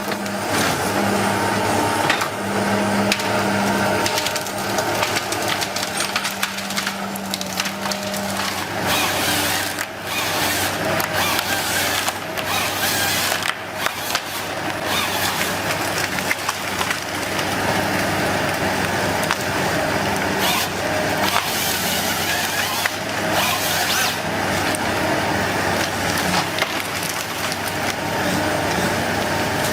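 Woodworking machinery at work: wood crunching and splintering with many sharp cracks over a steady motor hum.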